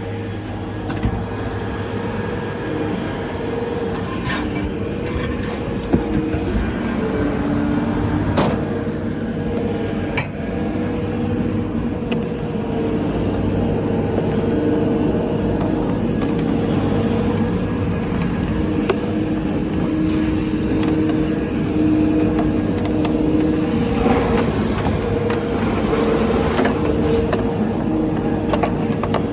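A motor vehicle engine running steadily with a low, even hum, and a few sharp metallic knocks, mostly around a third of the way in and near the end.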